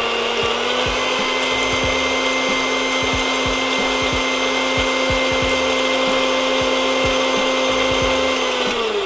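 Electric mixer grinder running at a steady pitch, its small stainless-steel jar grinding a wet masala paste of green chillies, whole spices, ginger-garlic and coriander with water. The motor winds down at the end.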